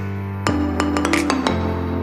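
Background music: sustained chords that change twice, with light, regular clicking percussion.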